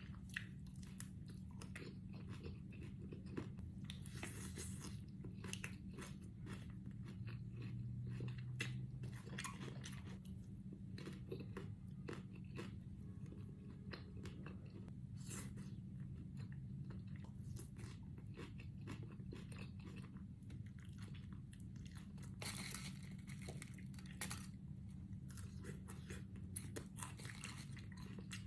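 A person chewing and biting food up close, with irregular crunches and wet mouth clicks, while eating barbecue with salad and chips. A steady low hum runs underneath.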